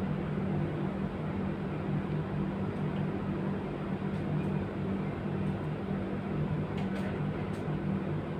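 A steady low mechanical hum with a constant pitch, and a few faint ticks about seven seconds in.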